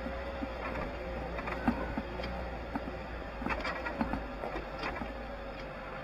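4x4 vehicle driving slowly over a rough gravel track: a steady engine hum and low rumble, with scattered knocks and rattles from the bumpy ground.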